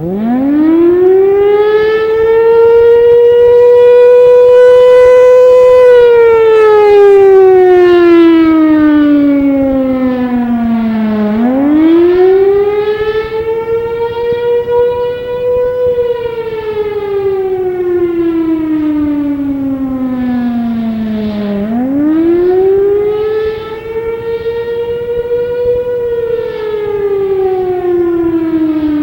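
Federal Signal Thunderbolt 1000 civil defense siren sounding the attack warning signal, a rising and falling wail. It starts up at the beginning, winds up from a low pitch to a high wail over about two seconds, holds for about four seconds, then slides down over about five seconds, and repeats about every ten seconds. Its loudness pulses regularly as the rotating horn sweeps around.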